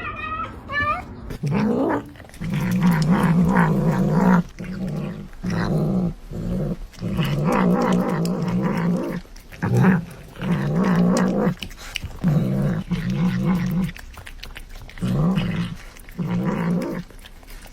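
A pet animal growling in repeated low bouts of a second or two each, with short pauses between them, after a brief wavering cry at the start.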